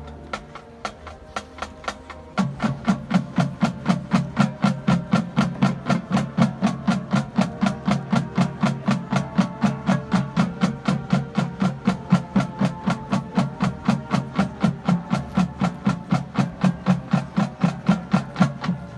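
Marching band warm-up: sharp woodblock-like clicks keep a steady beat, faster and louder from about two seconds in, when the band comes in holding a long, low sustained chord under them.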